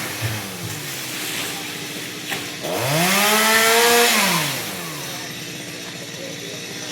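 Stihl MS 382 two-stroke chainsaw: a couple of brief throttle blips, then revved up hard once about three seconds in, held at high revs for over a second, and dropping back to a low idle.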